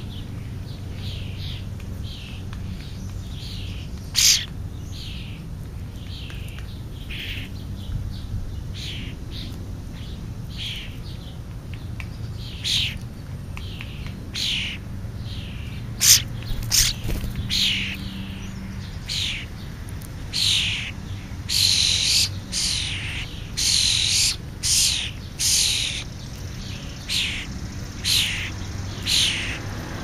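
Young European starlings calling: a string of short, harsh downward-sweeping calls, one or two a second, growing louder in the second half as a bird comes right up close. There are a couple of sharp clicks, about 4 and 16 seconds in, over a low steady hum.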